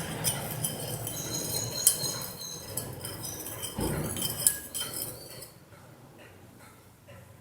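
A spoon stirring salt into gooseberry juice, clinking repeatedly against the glass with a ringing tone; the clinking dies away about five seconds in, leaving only a few faint taps.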